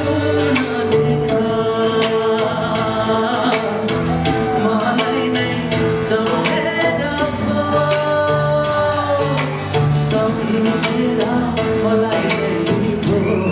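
A man singing a Nepali song into a microphone over backing music with a steady drum beat.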